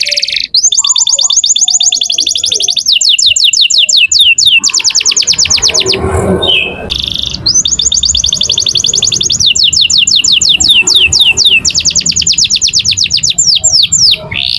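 Domestic canary singing its rolling song: long, fast trills of repeated falling notes, with a short break about six seconds in.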